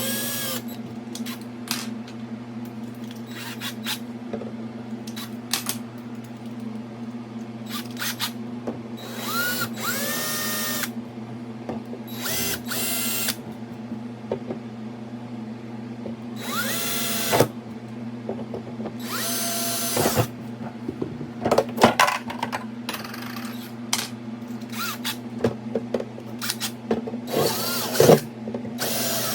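Power drill run in several short bursts, each spinning up with a rising whine, with clicks and knocks between bursts, over a steady low hum.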